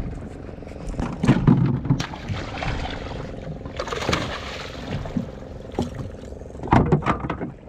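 Water splashing hard at the side of a small boat as a hooked kingfish (seer fish) thrashes and is gaffed, in several loud bursts about a second in, around four seconds and near the end. A steady engine hum runs underneath.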